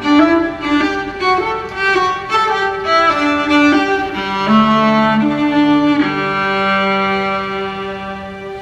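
Bowed strings playing a melody, violin over lower cello-like notes: a string of quick notes, then a long held chord that fades near the end.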